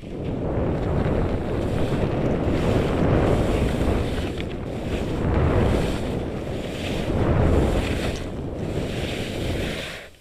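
Wind buffeting the microphone and Atomic skis hissing and scraping over soft summer snow during a fast run. The noise swells and eases, then drops away suddenly near the end as the skier stops.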